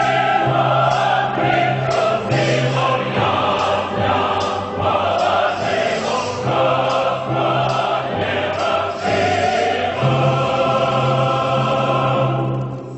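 Background music: a choir singing sustained chords, fading out near the end.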